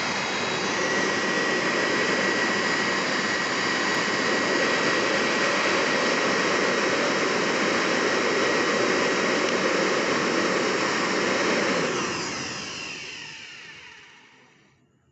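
Handheld electric air blower running steadily with a rush of air and a thin high motor whine, blowing on charcoal. About twelve seconds in it is switched off and winds down, the pitch falling as it fades out.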